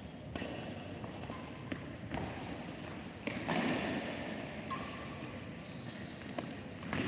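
Badminton rally: sharp racket hits on the shuttlecock every second or so, with short high shoe squeaks on the court mat in the second half and footsteps in between.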